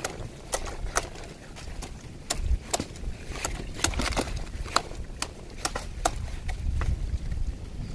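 Irregular sharp clicks and cracks over a low rumble: coconuts being twisted and snapped off at the top of a coconut palm.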